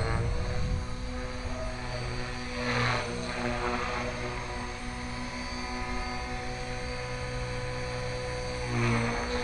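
Align T-Rex 450 Pro electric RC helicopter in flight: its motor and 325 mm carbon-fibre rotor blades make a steady whine. The pitch dips slightly at the start, and the blade noise swells louder about three seconds in and again near the end.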